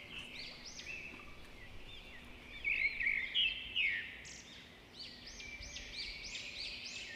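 Several birds chirping in short, rapid arched notes that rise and fall, often overlapping, with a brief lull just after the middle.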